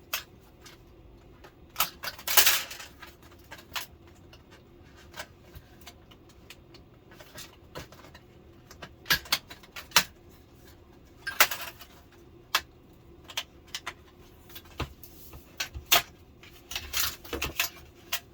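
Scattered clicks, taps and light rattles of an opened LCD television's internal parts being handled, with a few busier bursts of clattering.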